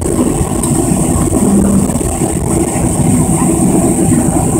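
Inside the cabin of a Southwest Airlines Boeing 737 taxiing: steady jet engine noise at low taxi thrust, a low rumble with a thin high whine over it.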